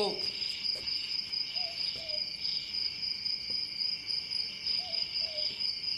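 Crickets chirping, a steady, unbroken high trill.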